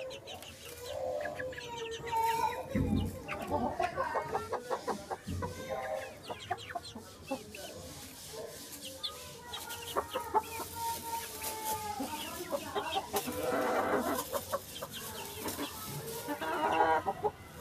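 Flock of chickens clucking and calling as they crowd round and peck at feed, with scattered short taps.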